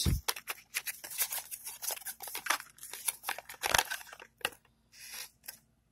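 Cardboard and cable packaging being handled: crinkling and rustling, with many short sharp clicks and taps as cables are pulled out of a small box, dying away near the end.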